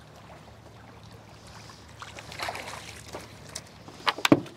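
Light wind and water noise around a small boat with a faint steady low hum, then a quick cluster of sharp knocks on the boat's deck near the end.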